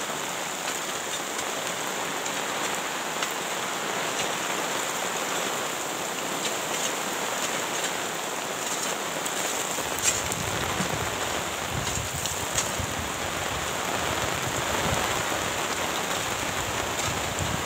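Heavy rain drumming on a plastic tarp, with runoff pouring off its edge onto the ground, a steady hiss with scattered drop ticks. About halfway through, a low rumble joins the rain.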